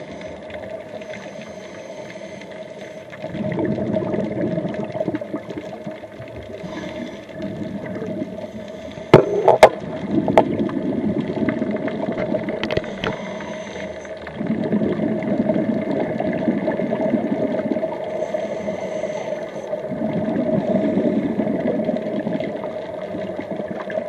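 Scuba regulator exhaust bubbles heard underwater, rumbling in four bursts a few seconds apart with each breath out. A pair of sharp clicks comes about nine seconds in.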